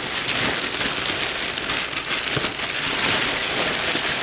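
Thin clear plastic bag being opened and handled, crinkling in a dense, continuous crackle.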